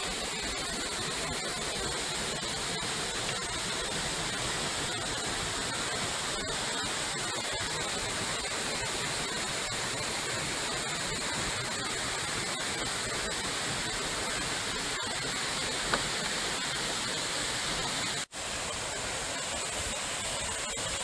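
Waterfall: a steady, even roar of falling water, with a momentary break about eighteen seconds in.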